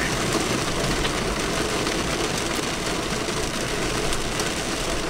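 Steady rush of heavy rain and wind on a vehicle, heard from inside.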